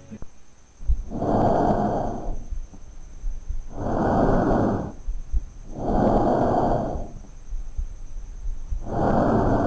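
A child's normal laryngotracheal (tracheal) breath sounds, as heard on auscultation: rushes of air, harsh and high-pitched, four of them roughly two seconds apart, each phase separated from the next by a short silence.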